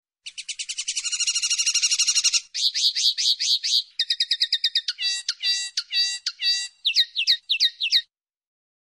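Common linnet singing: a fast trill, then runs of quickly repeated chirping notes, then a few clear falling whistles. The song stops about a second before the end.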